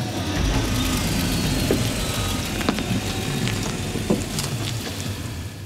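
An SUV's engine running beside the listener, with a few sharp clicks over it.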